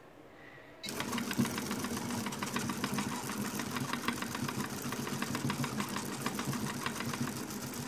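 3D-printed 1:19 cycloidal reducer, plastic discs running on metal pins, driven by a DC motor at 3000 RPM. It starts suddenly about a second in and runs on with a steady, fast, dense clatter over a hum.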